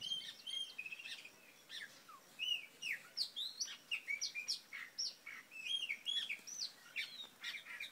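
A chorus of many birds chirping at once, short notes that rise and fall, overlapping without a break.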